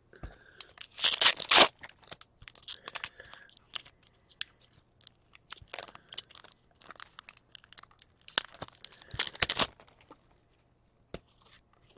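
Foil trading-card pack being torn open and its wrapper crinkled, with two louder tearing bursts about a second in and again near the end. Light clicks and rustles of cards being handled come between them.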